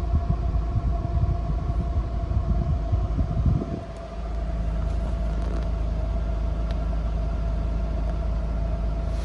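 Mercedes-Benz W124 300E-24's straight-six engine idling with the freshly rebuilt air conditioning running: a steady low rumble with a constant tone above it. The rumble is uneven for the first few seconds, dips briefly about four seconds in, then settles into a smooth, even idle.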